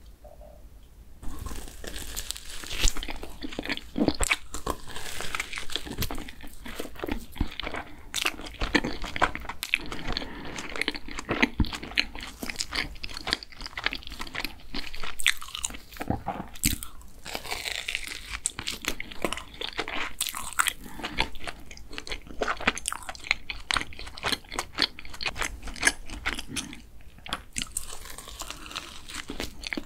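Close-miked biting and chewing of a glazed doughnut filled with mugwort whipped cream: dense wet, sticky mouth sounds and soft clicks, starting about a second in.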